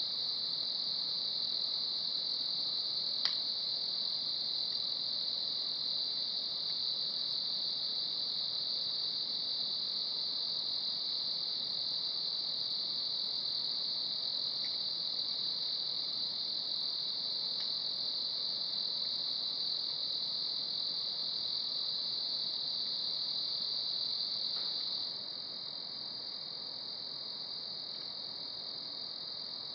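A steady, shrill chorus of night insects that drops a little in loudness about 25 seconds in. A faint sharp snap from the wood fire in the brazier comes about three seconds in, with a few softer ticks later.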